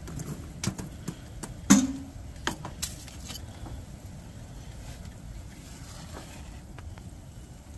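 A few sharp metallic knocks and clanks in the first three seconds, the loudest about two seconds in with a short ring, from handling and opening a small camp wood stove; then a steady low rushing noise.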